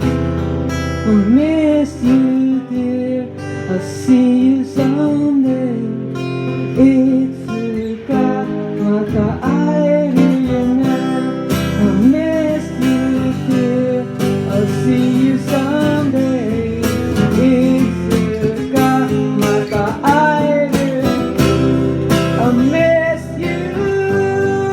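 Strummed acoustic guitar played live, with a melody line over the chords that bends and wavers in pitch.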